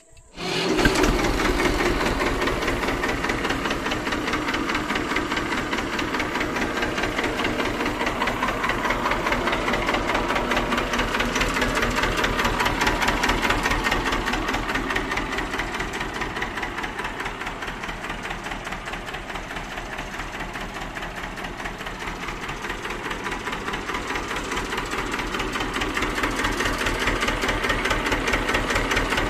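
TAFE 25 DI tractor's two-cylinder Simpsons S217 diesel engine starting up about a second in, then running steadily with an even, rapid pulsing beat.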